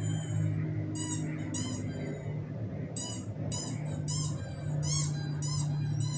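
Quick runs of short, high-pitched squeaks, three to five at a time, played from a laptop speaker, over a steady low hum.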